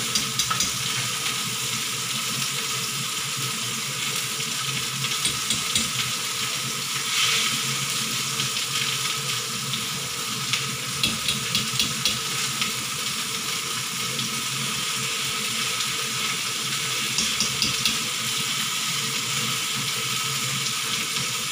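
Pot of chicken soup at a rolling boil, giving a steady bubbling hiss, while the fat is skimmed off the surface. The skimmer and ladle clink lightly against the pot in several short runs of ticks.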